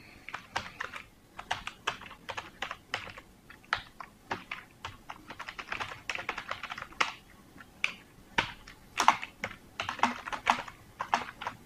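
Typing on a computer keyboard: an irregular run of key clicks with brief pauses between bursts.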